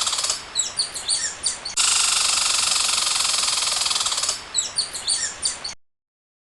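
Squirrel calling: a raspy, hissing buzz broken twice by quick runs of sharp, falling chirps, typical squirrel chatter. The calls stop abruptly near the end.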